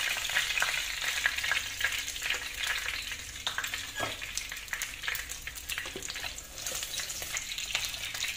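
Hot cooking oil sizzling and crackling in a frying pan where pieces of pomfret are being deep-fried golden, with many small pops of spitting oil and a couple of light knocks.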